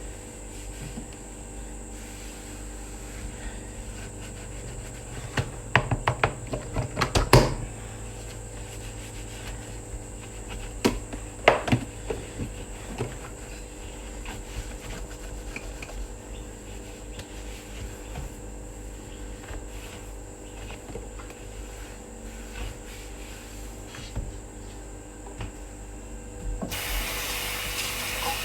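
Kitchen handling sounds over a steady low room hum: a few clusters of knocks and clatter. Near the end a kitchen tap is turned on and water runs into the sink.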